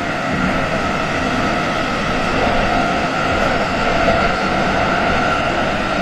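Tokyo Metro 18000 series subway train running through a tunnel, heard inside the passenger car: a steady rumble of wheels on rail with a steady whine over it.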